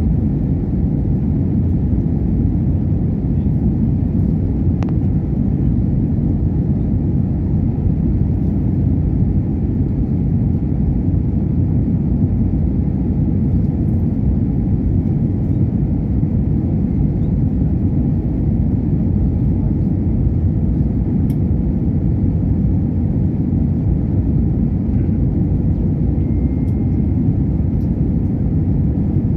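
Airliner cabin noise on final approach: a steady low rumble of engines and airflow, with a faint steady hum.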